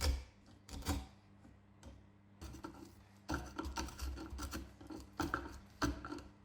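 Wood chisel working in a drilled-out pine mortise, squaring the edges and clearing waste. Two sharp knocks in the first second, then a run of short scraping, rasping strokes.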